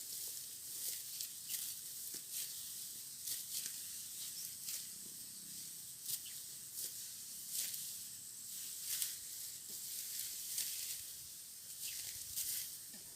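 Ripe rice stalks being cut by hand with a harvesting knife: irregular crisp swishes and rasping snaps, about one every half second to a second, over a steady high hiss.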